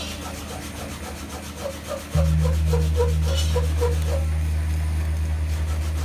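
Large hanging gongs ringing with a deep, steady hum. About two seconds in, a louder gong tone comes in. Over it, a gong face is rubbed in quick, even strokes, about three a second.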